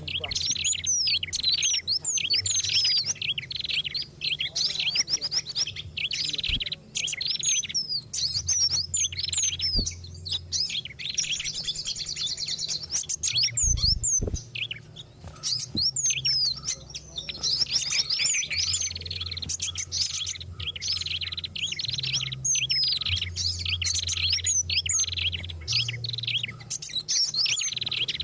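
Bird-lure recording of several small songbirds calling busily together: a dense, unbroken mix of rapid high chirps and quick down-slurred whistles, made to draw in wild birds. A low steady hum runs underneath.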